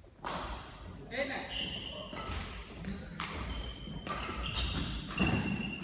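Badminton rally on a wooden court floor: shoes squeaking in short high squeals and scuffing as players move, with sharp racket strokes on the shuttlecock several times.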